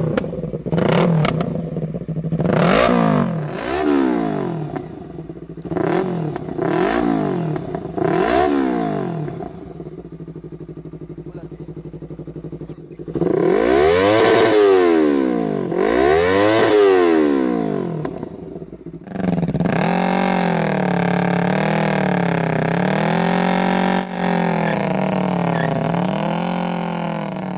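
Yamaha R25's 250 cc parallel-twin engine being revved: a string of quick throttle blips that rise and fall, a short spell near idle, two long revs up and back down, then revs held at a higher, wavering pitch.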